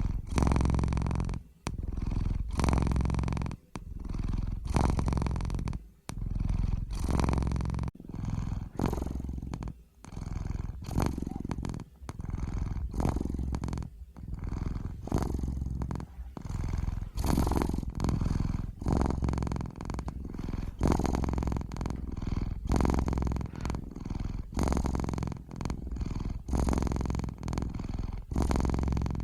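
A domestic cat purring close up, a low buzzing purr that swells and fades with each in-breath and out-breath, about one breath every two seconds.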